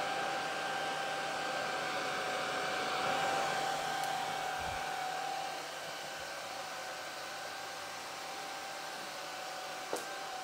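Kaleido M6 Pro coffee roaster's cooling fan running steadily after the drop, a rushing blow of air with a steady whine, pulling air through the hot freshly roasted beans to cool them. It gets a little quieter about halfway through, and there is a single sharp click near the end.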